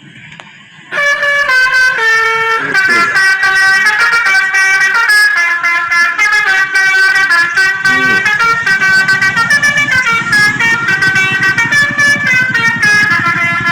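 Telolet horn on an odong-odong tourist vehicle playing a tune of stepped horn tones, starting suddenly about a second in. From about eight seconds a low buzzing rattle runs underneath the horn.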